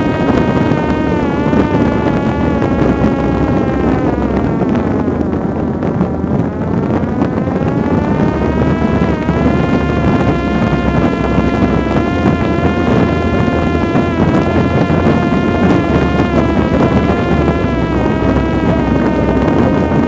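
Parrot Disco fixed-wing drone's electric motor and rear propeller whining steadily in flight, picked up by the onboard camera with wind rushing over the microphone. The whine sags in pitch about five seconds in and climbs back a few seconds later.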